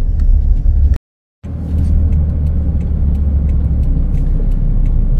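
Steady low rumble of road and engine noise inside the cab of a moving Toyota Hilux pickup carrying a camper. The sound cuts out completely for a moment about a second in.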